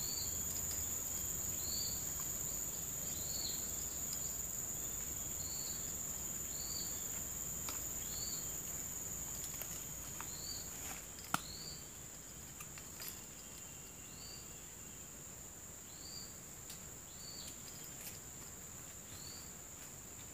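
Steady high-pitched drone of insects, crickets or cicadas, with a short chirping call repeating about once a second and a few faint clicks.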